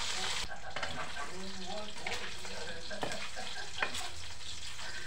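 Food frying in hot oil in a metal wok, sizzling steadily, while a metal spatula stirs it, clinking and scraping against the pan a few times, most sharply near four seconds in.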